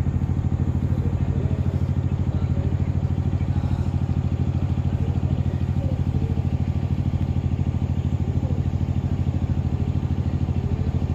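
Boat engine running steadily close by, a low, even, rapid chugging throb.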